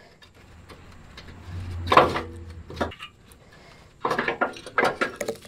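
Metal clanking and scraping as an old, rusty Nissan Xterra engine mount is worked free of its frame bracket. There is a loud clank about two seconds in and a run of knocks near the end.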